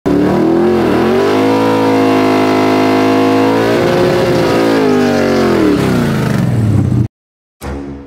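Foxbody Mustang's stroked 410 cubic-inch Windsor V8 held at high revs during a burnout, then the revs fall away before the sound cuts off abruptly. Intro music with heavy drum hits starts near the end.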